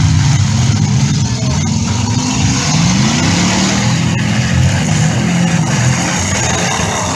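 Engines of several demolition derby pickup trucks running and revving together. One engine's pitch climbs as it accelerates, about two and a half seconds in.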